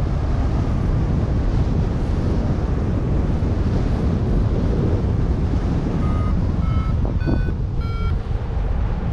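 Steady wind rushing over the microphone of a paraglider in flight. About six seconds in, a flight variometer gives four short beeps a little over half a second apart, the pitch stepping up and then dipping slightly: its signal that the wing is climbing in lift.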